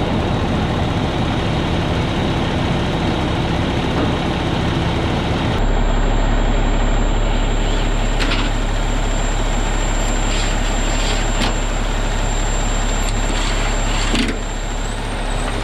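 Cummins ISX15 diesel engine in a Kenworth T800 dump truck idling steadily, its low rumble stepping up in level about five seconds in. A few short knocks sound over it as panels are fitted back on.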